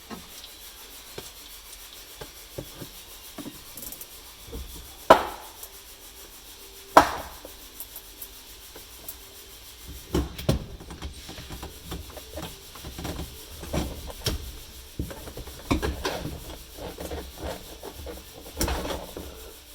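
Hand work with tools and metal parts: rubbing and scraping with scattered clicks and knocks, two sharp knocks about five and seven seconds in, and a busier run of clicks and knocks in the second half.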